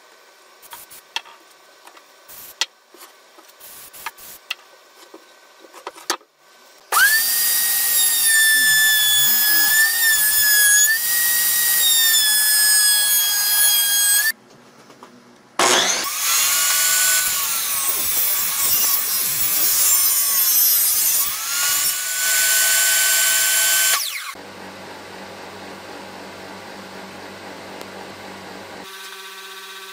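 Trim router clamped upside down in a vise, running with a steady high whine as wooden strips are fed over its bit to round their edges. It makes two long passes with a short pause between them. Before it starts there are a few light knocks and taps of wood being handled.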